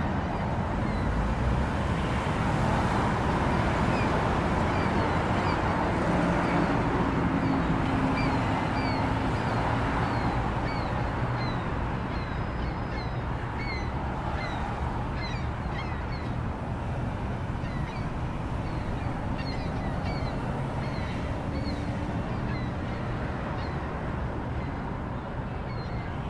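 Steady rumble of city intersection traffic, with small birds chirping repeatedly over it.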